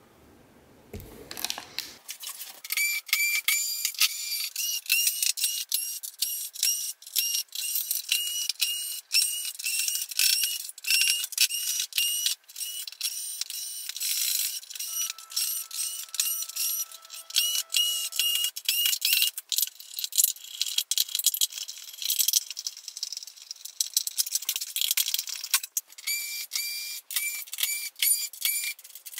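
Sped-up sound of flat-screen TVs being taken apart: a dense, fast run of sharp clicks and rattles mixed with short high whirs that bend in pitch, starting about two seconds in.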